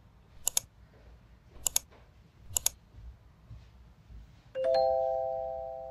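Intro sound effects: three quick double clicks about a second apart, then a bright chime that rings on and slowly fades.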